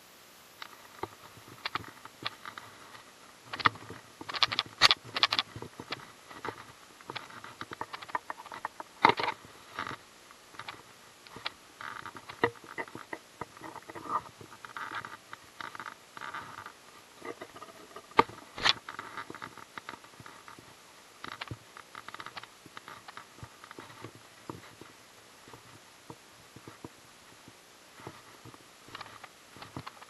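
Irregular clicks, taps and rubbing from a baitcasting rod and reel being handled close to the microphone. They come in clusters with quieter gaps between.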